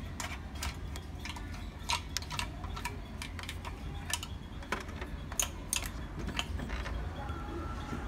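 Scattered light plastic clicks and taps, irregular, as fingers press the control-panel buttons of an Epson L3150 ink-tank printer (power and stop held together to print a nozzle check), over a low steady hum.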